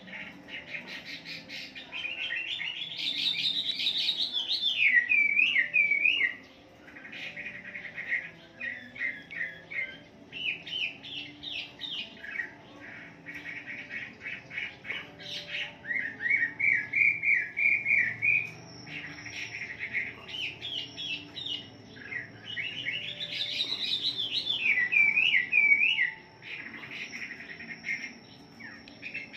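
Caged Chinese hwamei singing a long, varied song: loud whistled phrases with rising sweeps, fast runs of repeated notes and wavering slurs, in bursts of a few seconds with short pauses between them.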